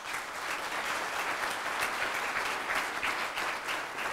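Audience applauding, a dense steady patter of many hands clapping that begins all at once.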